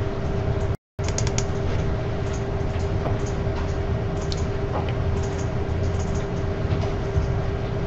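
Steady background hum with two constant tones over a low rumble and hiss, with a few faint clicks near the start. The sound drops out completely for an instant just under a second in.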